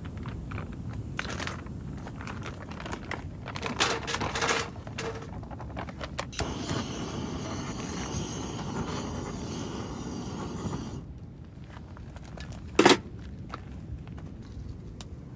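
Small firewood blocks shaken out of a crinkling plastic bag and clattering into a small steel fire can, then a gas torch hissing steadily for about four and a half seconds as it lights them. One sharp knock near the end is the loudest sound.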